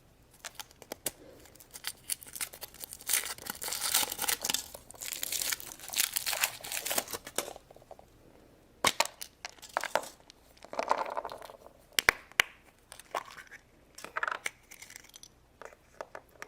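Wrapper on a Chupa Chups surprise crinkling and tearing as it is unwrapped by hand, in irregular rustling bursts with a few sharp clicks.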